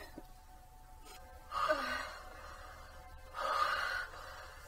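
Two breathy gasps, about 1.5 and 3.3 seconds in, each lasting under a second, over faint background music.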